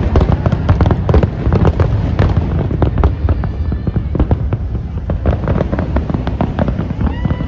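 Fireworks going off in a dense, continuous barrage: deep booms and sharp cracks overlapping many times a second without a break.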